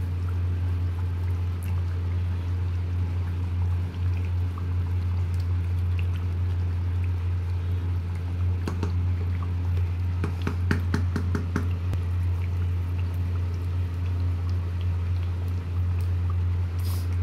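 Duck curry bubbling in a pot while a wooden spatula stirs it, with a run of short knocks and scrapes against the pot about halfway through. A loud steady low hum runs underneath.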